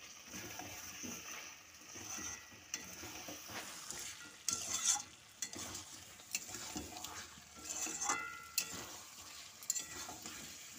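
Spatula scraping and knocking against a metal karahi at irregular moments as chicken and potato chunks are stirred through a thick masala, over a light steady sizzle of frying.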